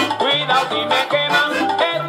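Accordion playing a quick Latin dance tune over a steady bass line, with a bass note about every half second.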